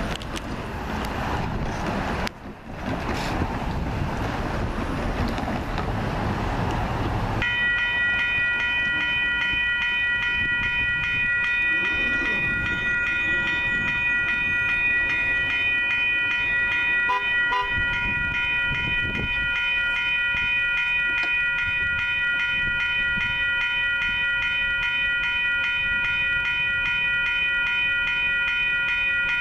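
Passing traffic for the first seven seconds or so, then a railroad grade-crossing bell starts ringing steadily as the crossing gates lower. It is warning of an approaching train.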